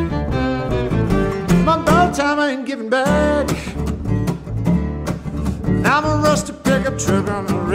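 Acoustic string band playing a bluesy bluegrass tune: fiddle, upright bass and strummed acoustic guitar, with sliding melody notes on top. The bass drops out for a moment about two and a half seconds in.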